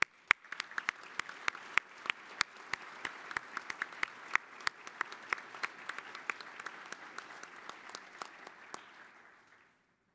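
Audience applauding, with a few close, sharp claps standing out over the general clapping. The applause dies away near the end.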